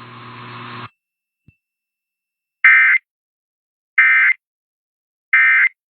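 Emergency Alert System end-of-message code: three short, identical bursts of SAME digital data tones about a second and a bit apart, signalling the end of the EAS test. A faint hum from the broadcast cuts off about a second in, before the bursts.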